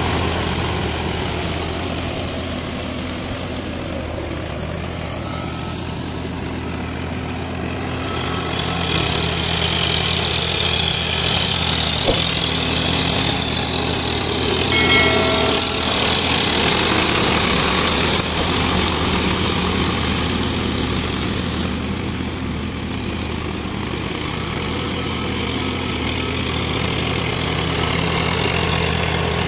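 Small farm tractor's engine running steadily as it pulls a rotavator through a flooded rice field, churning the mud. A brief high-pitched tone sounds about halfway through.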